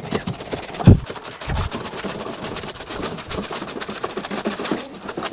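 Rapid, irregular scraping and brushing in an air cooler's water tank as the dust is cleaned out of it, with one loud knock about a second in.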